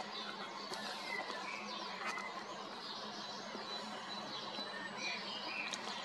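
Several birds singing and chirping at once, a steady scatter of short faint chirps and warbles over a light background hiss.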